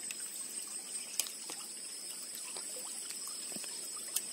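Water trickling in a small muddy ditch, under a steady high-pitched whine, with a couple of sharp clicks about a second in and near the end.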